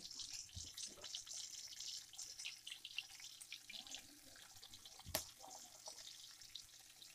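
Corn kernels coated in cornflour sizzling and crackling as they deep-fry in hot oil in an iron kadai, the flame just turned down. There is one sharp click about five seconds in.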